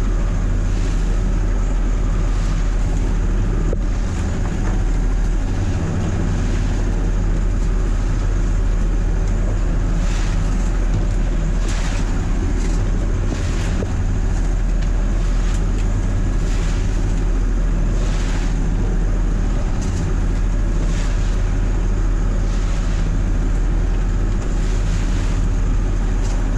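Perkins T6.3544M turbocharged six-cylinder marine diesel running steadily under way, heard from inside the wheelhouse. Spray and waves splash against the hull and windscreen every second or two.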